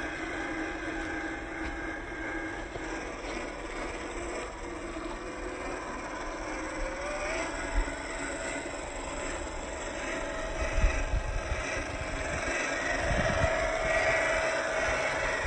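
The drivetrain of a 1/10 scale RC Land Rover Series III, a brushless motor and gears, whining as the truck drives over mud and sand. The pitch rises about seven seconds in and stays higher near the end. There are a couple of short low thumps about eight and eleven seconds in.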